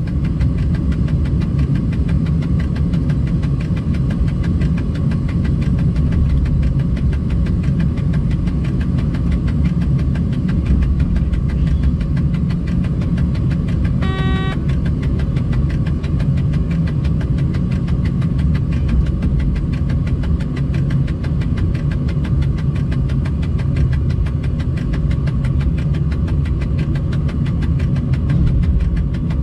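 Steady ticking from an old analog tachograph in a freight locomotive's cab, over the low rumble of the moving locomotive. A short beep sounds about halfway through.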